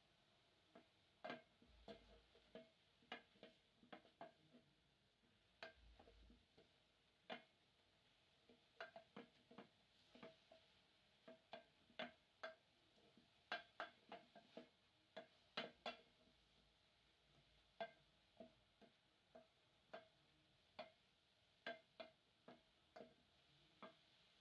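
Wooden spoon knocking against an aluminium pot while stirring chopped greens: faint, irregular sharp clicks, one or two a second, each with a brief metallic ring.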